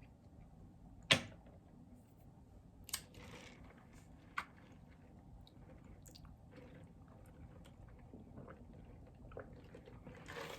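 A person chewing food with the mouth close to the microphone, with a few sharp clicks, the loudest about a second in.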